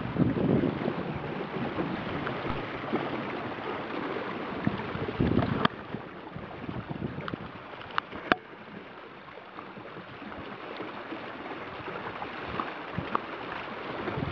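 Small open sailboat (a Michalak Mayfly 14) under sail: water rushing and splashing along the hull, with wind buffeting the microphone. About halfway through it drops to a quieter, steadier wash of water in calmer conditions, with a few sharp clicks.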